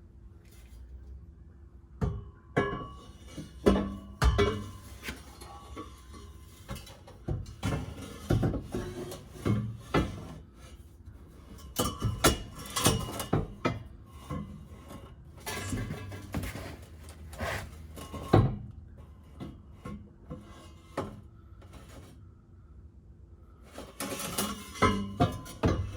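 Metal exhaust pipes clanking, knocking and scraping as they are worked into place under a car, in irregular bursts of clinks and knocks.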